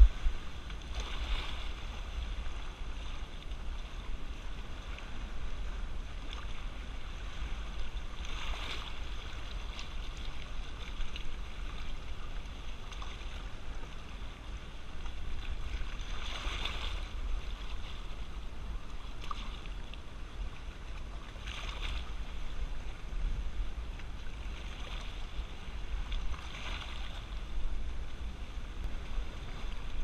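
Shallow sea water washing over and draining off a rocky reef shelf, a hissing surge swelling every few seconds, about five times, over a steady low rumble of wind on the microphone.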